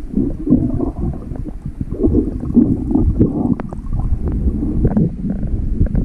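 Muffled, irregular sloshing and gurgling of shallow sea water around the camera as it moves through the water, with a few faint clicks and knocks.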